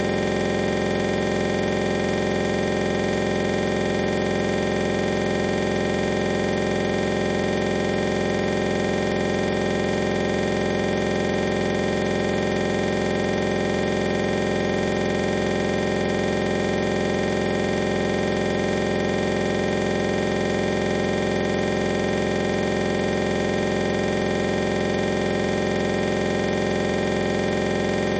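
Steady electronic noise made of many fixed tones over a hiss, holding one level without any change.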